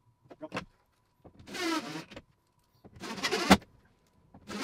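Cordless drill-driver running in three short bursts, its whine rising and falling in pitch, as it drives wood screws through a wall bracket. A sharp click ends the second burst, about three and a half seconds in.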